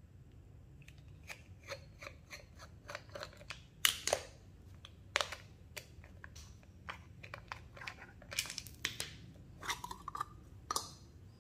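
Screwdriver unscrewing the blue plastic cover of a water pump's automatic pressure switch, with irregular small clicks, taps and scrapes of metal on plastic. A sharper knock comes about four seconds in, and the cover is pulled off the switch near the end.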